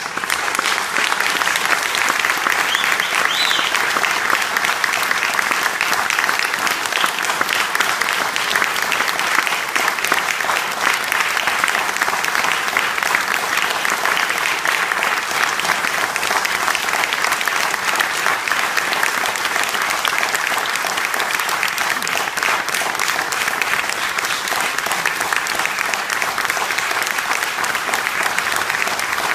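Concert hall audience applauding, a dense, even clapping that holds steady throughout.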